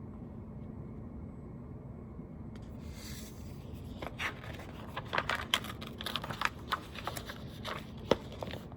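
Paper pages of a picture book being handled and turned: a soft rustle about three seconds in, then a run of small crinkles, taps and scrapes over a low steady room hum.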